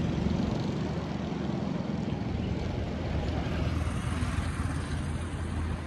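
A 600 cc generator engine running steadily with a low drone.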